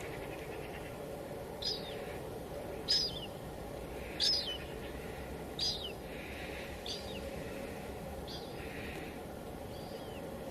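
Steady hiss of light drizzle. Over it a bird calls again and again: seven short chirps, each falling in pitch, about one every second and a half.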